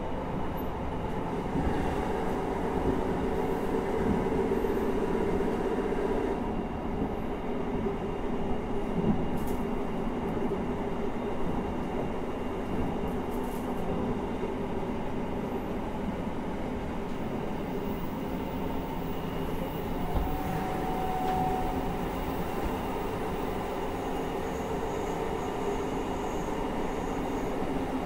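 Running noise heard inside a JR Hokkaido 733-series 3000-subseries electric multiple unit between stations: a steady rumble of wheels on rail with a continuous motor hum, a little louder for a few seconds near the start.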